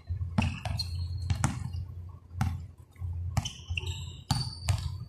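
Basketball bouncing on the court, a thud roughly once a second, with a few short high squeaks in between.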